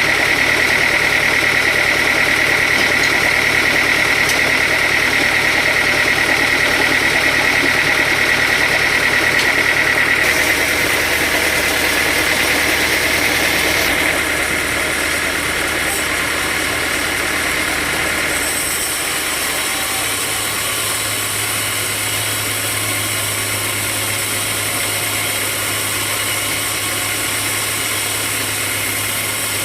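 Sawmill machinery running steadily: an engine hum with a high steady whine through the first third. The sound changes abruptly about ten, fourteen and eighteen seconds in, and settles into a lower steady hum for the rest.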